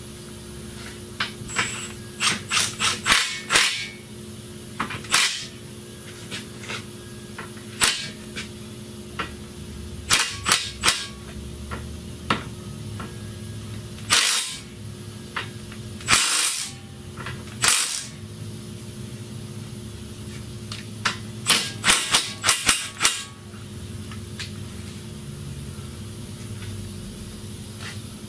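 Metal-on-metal tool work on a car's suspension: clusters of sharp clicks and taps, with three short bursts of a cordless power tool about halfway through.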